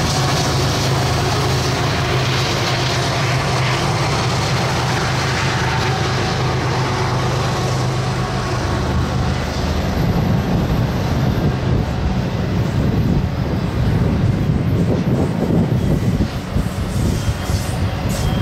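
BNSF double-stack freight train working up a steep grade with diesel power. A steady low drone runs for about the first half, then gives way to a rougher, uneven rumble of the train rolling by.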